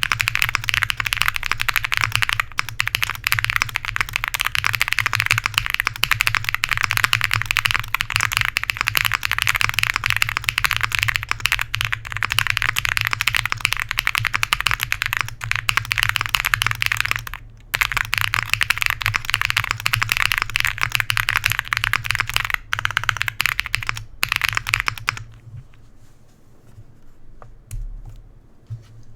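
Fast, continuous typing on a mechanical keyboard with YOK Holy Panda tactile switches on an FR4 plate, a dense stream of key clacks. It pauses briefly about two-thirds of the way in, and stops near the end, leaving only a few scattered key presses.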